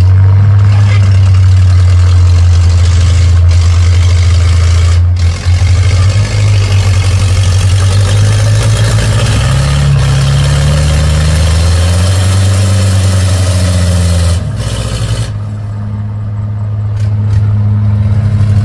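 Truck engine running hard with a steady low drone. Its pitch rises and eases off in the middle, drops away suddenly about fourteen seconds in, then builds again near the end.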